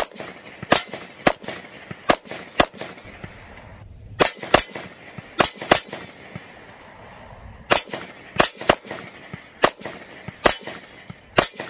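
Sig Sauer P229 Legion SAO 9mm pistol firing about fifteen shots, mostly in quick pairs and short strings a second or two apart.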